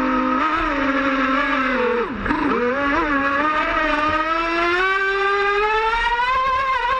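Electric RC speedboat's twin Lehner 1950/7 brushless motors whining under throttle. The pitch dips sharply about two seconds in, then rises steadily as the motors wind back up.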